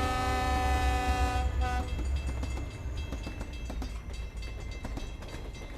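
A train horn blowing a loud chord that cuts off about a second and a half in, over the low rumble of a passing train. After that the wheels keep clattering along the track.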